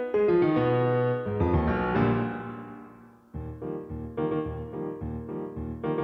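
Piano music. A phrase of notes rings out and fades away, then about three seconds in a new passage of repeated chords starts, about two a second.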